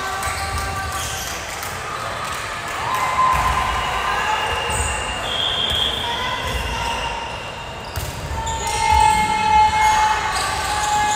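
Volleyball gym during a match: players' voices calling across the court, with dull thumps of a ball and feet on the hardwood floor echoing in the large hall. The voices get louder in the last few seconds.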